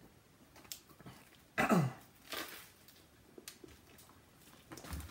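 A man's short cough or throat-clear about one and a half seconds in, its pitch dropping sharply, followed by a breathy huff of air.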